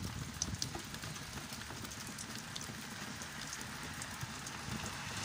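Steady rain falling, getting heavier, with scattered sharp ticks of single drops landing close by.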